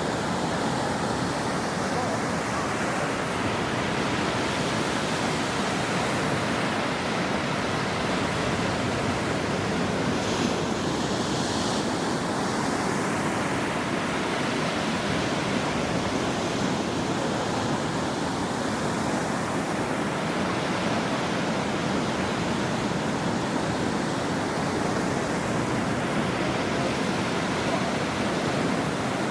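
Ocean waves breaking and washing on a shore: a steady rushing surf whose hiss swells and ebbs every several seconds, with the brightest wash about ten seconds in.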